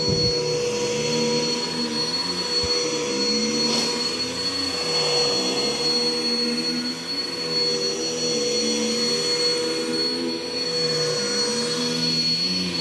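Bissell CleanView vacuum cleaner running steadily, its motor giving a constant high whine.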